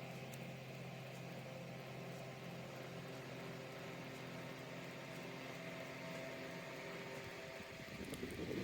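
Small USB mini desk fan running, a steady motor hum with the hiss of moving air. About eight seconds in, a louder rushing sets in.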